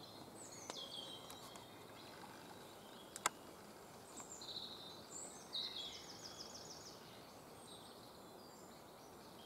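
Faint woodland birdsong: scattered high chirps and a short rapid trill about six seconds in, over a steady background hiss. A single sharp click sounds about three seconds in.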